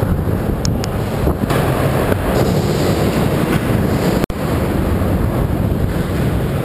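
Skateboard wheels rolling on a skatepark ramp, picked up close to the board, with wind buffeting the microphone: a steady, loud rolling noise. The sound drops out briefly about four seconds in.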